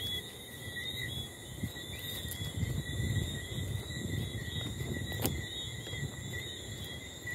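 Night insects chirping in a steady, continuous high trill, with a low, uneven rumbling noise underneath and a single sharp click about five seconds in.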